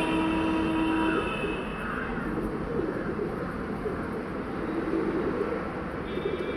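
A horn holding one long steady note, which stops about a second in and sounds again near the end, over a continuous rough rumbling noise.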